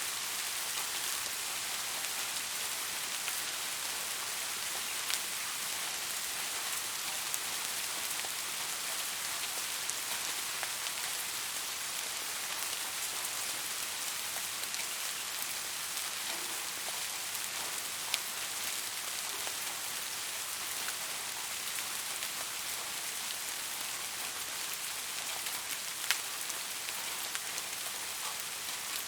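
Soft rain falling steadily, an even hiss of many raindrops, with now and then a single louder drop ticking, the clearest about two-thirds of the way in and again near the end.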